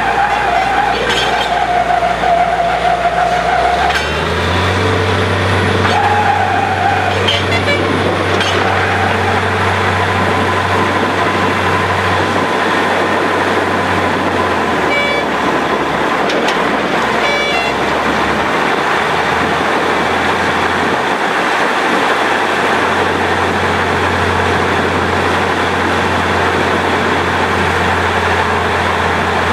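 Borewell drilling rig running: a deep, steady engine drone under a loud rushing noise, with the engine note stepping up about four seconds in.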